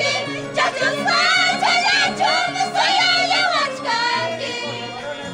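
Schoolgirls singing together in high voices, with a violin and an Andean harp playing along. The singing thins out about four seconds in while the harp's low notes carry on.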